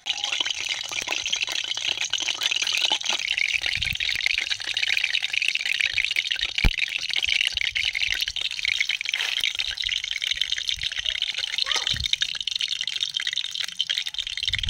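Hot mustard oil sizzling and crackling steadily in an aluminium wok over a wood fire, with a few knocks.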